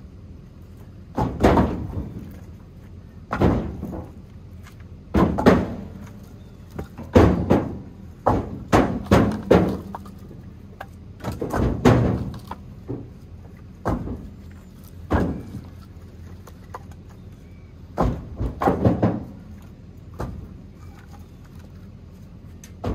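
Split firewood being stacked by hand: wooden thunks and clacks as pieces are set down on the pile, every second or two, sometimes several in quick succession.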